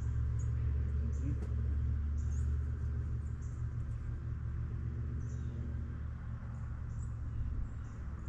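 Wind buffeting the microphone as a steady low rumble, with faint, short high chirps of small birds scattered through it.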